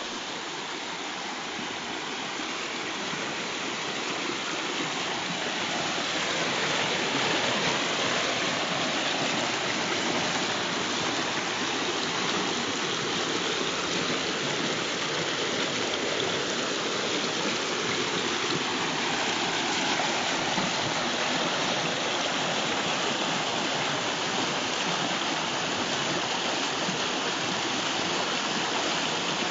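Shallow stream running over rocks: a steady rush of flowing water that grows louder over the first several seconds, then holds steady.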